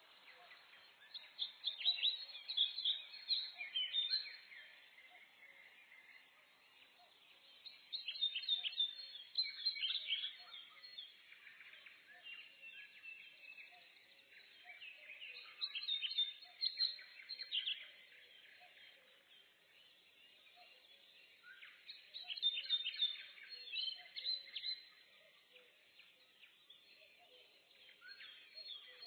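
Forest birds singing and chirping in the morning: bursts of rapid high chirps and trills about every six or seven seconds, with softer twittering in between.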